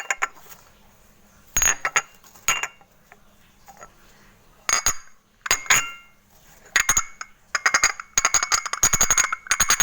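Small hard objects clinking together with a bright, ringing tone: several separate clusters of clinks, then a quick jingling run near the end.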